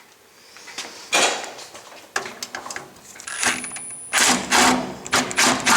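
Power drill driving sheet-metal screws into the water heater's flue vent pipe joints. It runs in several short bursts, with the motor's hum under the later ones.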